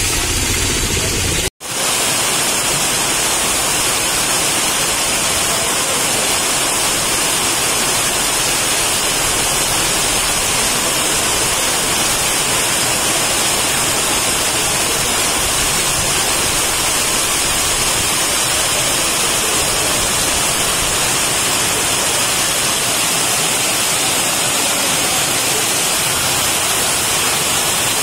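Heavy monsoon rain pouring steadily onto roads and open pavement, a dense even hiss. A little traffic rumble is under it at first, and the sound cuts out for an instant about a second and a half in.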